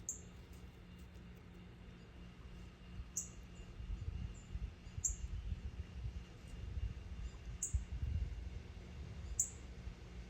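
A small bird calling: a short, high chirp that falls in pitch, repeated about every two seconds, five times. A low rumble of handling noise swells in the middle.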